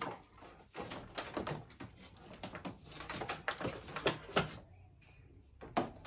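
A long Ethernet cable being uncoiled and handled: irregular rustles, knocks and clicks of the cable and its plastic plugs against the table and equipment, loudest about four seconds in.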